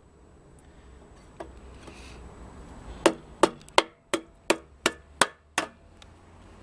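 A hammer tapping a plastic replacement ladder foot onto the ladder: about eight sharp knocks in quick succession, starting about three seconds in.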